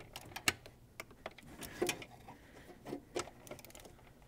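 Hand ratchet clicking in short, irregular strokes as 10 mm bolts are run down and torqued to 89 inch-pounds.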